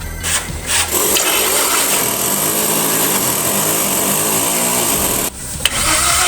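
A small power tool running steadily with a high whine for about four seconds, then stopping abruptly.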